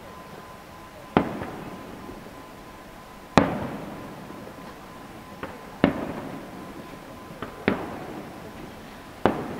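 Aerial firework shells bursting at a distance: about seven booms a second or two apart, the loudest about three seconds in, each trailing off in an echo.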